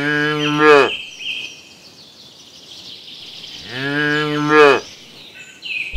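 Cattle mooing twice, each moo about a second long, rising slightly in pitch and loudest just before it ends.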